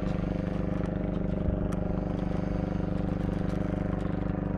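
Fishing boat's engine idling steadily with an even, regular beat.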